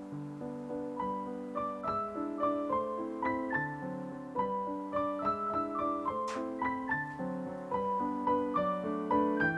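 Soft background piano music: a melody of single struck notes over lower chords, with one light click about six seconds in.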